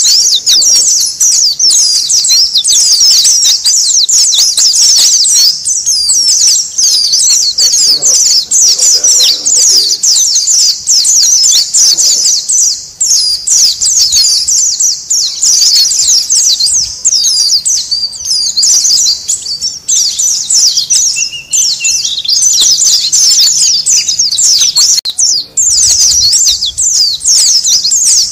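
A flock of white-eyes (pleci) chattering noisily: many short, high chirps and twitters overlapping without a break. It is a colony-call recording used as a lure to draw in wild white-eyes.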